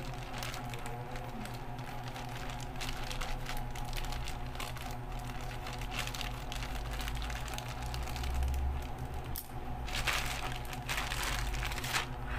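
Thin plastic courier pouch crinkling and crackling as it is cut open with small scissors and then pulled open by hand, in a run of short crackles that is loudest about ten seconds in. A steady low hum runs underneath.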